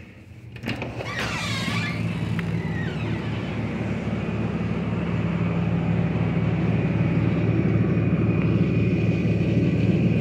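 A motor or engine running with a steady low hum and an even pulse, growing slowly louder. A brief squeak comes about a second in.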